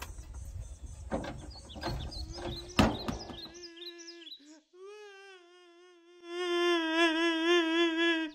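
Outdoor noise with scattered knocks and a few bird chirps. After a short hush, a man wails in a long, drawn-out, wavering cry from about six seconds in; this is the loudest sound.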